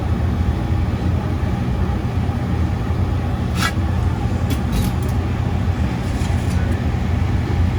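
Steady low hum of a running refrigeration condensing unit, its compressor and condenser fan, with a few light clicks a little past halfway.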